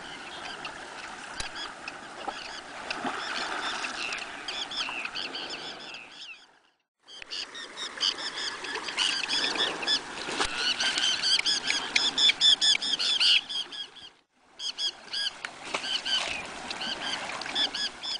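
Arctic terns calling over and over, many short calls overlapping, loudest about two-thirds of the way through. The sound drops out completely twice, briefly.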